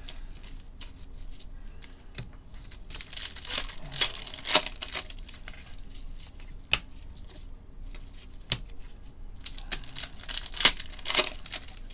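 Trading card packs being torn open and their wrappers crinkled, with cards being handled in between. The rustling and tearing come in two spells, a few seconds in and again near the end, with scattered light clicks.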